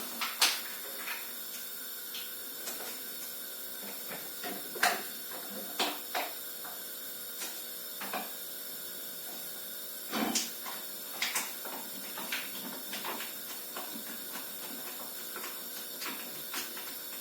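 Scattered light clicks and knocks of kitchen things being handled, a few louder than the rest, over a steady background hiss.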